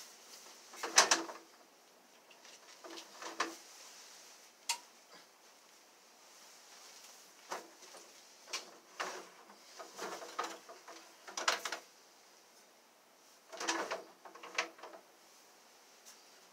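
Scattered knocks, clacks and rustles of objects being handled and moved, about a dozen in irregular spurts, over a faint steady hiss.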